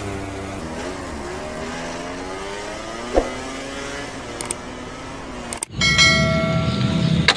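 Racing motorcycle engine sound: a steady engine note whose pitch slowly falls for about five seconds, then after a brief break a louder, higher steady engine whine near the end.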